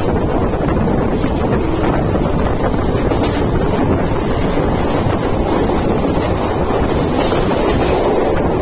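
Mumbai suburban local train running at speed, heard from on board as a steady loud rush of wind blowing on the microphone over the train's running rumble.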